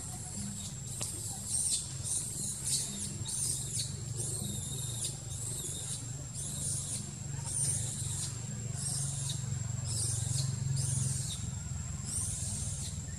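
Outdoor ambience: rhythmic high-pitched hissing pulses, about one or two a second, with a thin steady high whine over a steady low hum.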